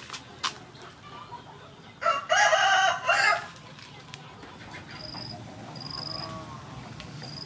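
A rooster crowing once, a loud call lasting about a second and a half, about two seconds in. Short high peeps follow about once a second in the second half.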